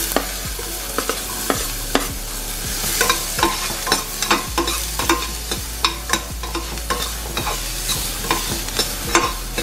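Chopped onion tipped into hot oil in a stainless steel pan sizzles at once and keeps frying with a steady hiss. A metal utensil stirring it scrapes and clinks against the pan again and again.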